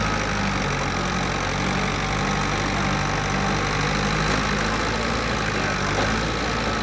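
An engine idling steadily, a low even hum with a constant noise over it.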